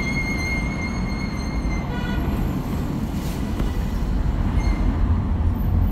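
Car driving on the road: steady low rumble of tyres and engine, with a thin high whine that stops about two seconds in.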